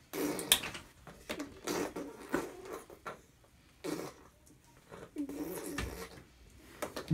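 A baby blowing raspberries and making short buzzy vocal noises through pursed lips, in several bursts, with a sharp click about half a second in.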